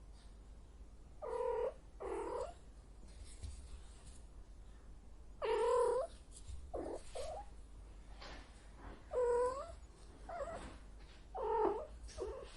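Female cat in heat calling: about eight short, drawn-out yowling meows, some in quick pairs, with pauses of a few seconds between them.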